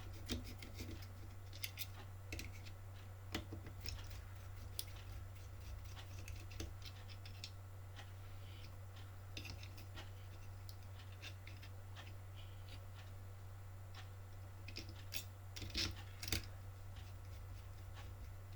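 Scattered small clicks, taps and scratches of hands handling wires and plastic parts on an RC car chassis, with a few louder clicks near the end, over a steady low hum.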